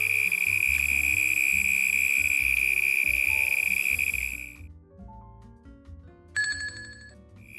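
A steady, high-pitched animal call, like an insect's or frog's continuous trill, over soft background music. It fades out about halfway through, a short buzzy call sounds near the end, and the steady call starts again at the very end.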